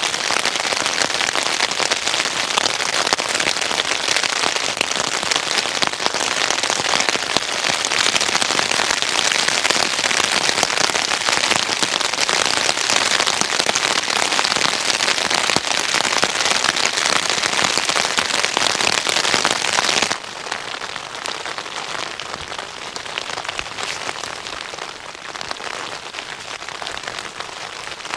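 Heavy rain falling steadily as a dense hiss. About twenty seconds in it drops abruptly to a lighter, quieter rain.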